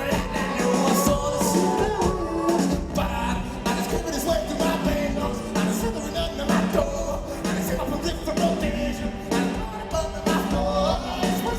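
Indie rock band playing live: a steady drum beat with bass and guitars under a sung lead vocal.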